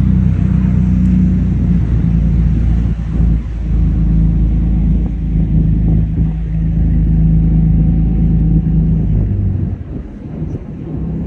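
A passenger boat's engine running with a steady, loud low drone under the rush of water and air on deck. The drone eases off near the end.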